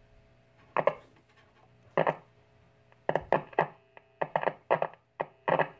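1951 Silvertone tube radio's speaker giving a steady low hum, broken by short loud bursts of tone and crackle: two single bursts, then a quick run of several a second in the second half. The bursts come as the radio picks up the attached signal generator intermittently while the set is being probed.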